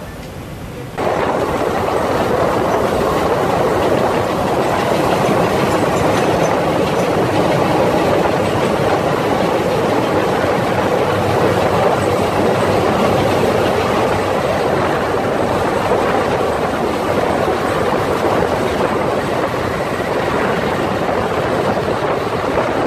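Historic electric-hauled train running at speed, its wheels rolling over the rails in a steady loud rumble, heard from an open window beside the locomotive. The noise jumps up suddenly about a second in.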